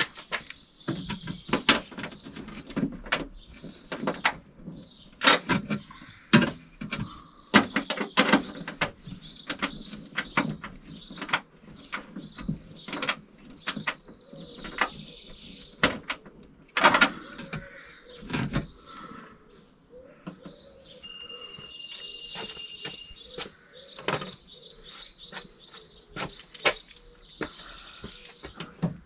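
Many sharp clicks and knocks from hands working on the open car tailgate, with small birds chirping behind them. About two-thirds of the way through, a single steady whistle-like tone holds for about two seconds.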